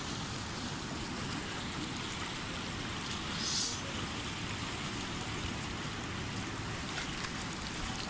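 Fast-flowing river rushing steadily over rocks, with a brief splash of hand-scooped water about three and a half seconds in.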